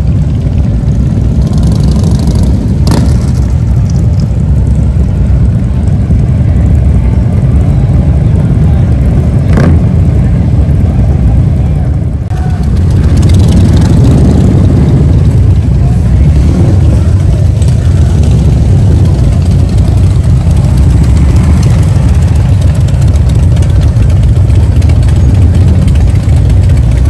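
Motorcycle engines running in a deep, steady rumble, with a couple of brief sharp clicks.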